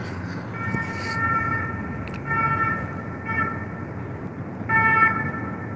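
A horn-like tone sounding several times, each a second or so long at the same pitch, over a low background rumble.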